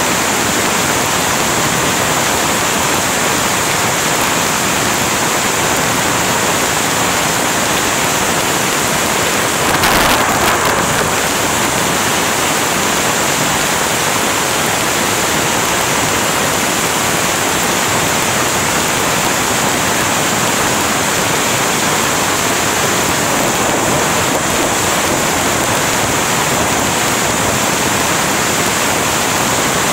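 Heavy rain falling steadily, a dense even hiss. A short louder crack comes about ten seconds in.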